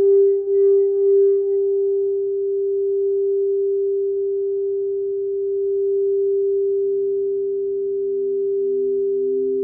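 Quartz crystal singing bowls ringing: one bowl holds a steady pure tone, wavering for the first second or so and then smooth. About seven seconds in, a second, lower-pitched bowl joins with a slow pulsing wobble.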